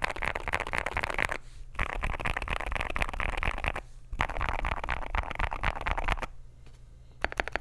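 Fast typing on an AKKO JIN01 aluminium gasket-mount mechanical keyboard with lubed Akko Rosewood switches and PBT keycaps: quick runs of keystrokes broken by three short pauses. Near the end an even, rapid run of key presses begins.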